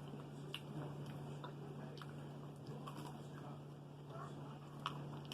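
A person chewing food close to the microphone, with faint small mouth clicks and a sharper click near the end, over a steady low hum.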